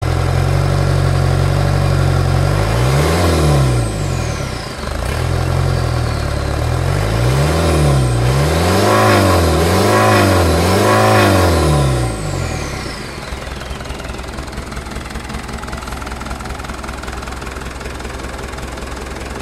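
Mitsubishi Fuso 4D34 four-cylinder turbo diesel engine running. It idles, is revved up and down repeatedly from a few seconds in, with a thin turbo whistle falling away after the revs, then settles back to a steady idle about two-thirds of the way through.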